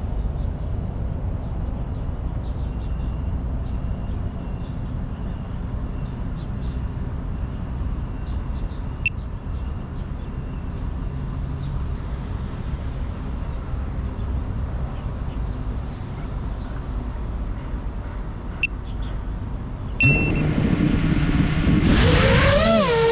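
Steady low rumble with a few short electronic beeps. About twenty seconds in, an FPV drone's motors spin up to a steady whine, then rev with a pitch that wavers up and down near the end.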